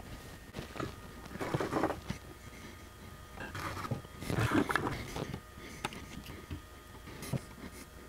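Light handling noises at a circuit board clamped in a PCB holder: scattered clicks and taps with a few short scraping rustles, as a capacitor lead is bent into place and soldered.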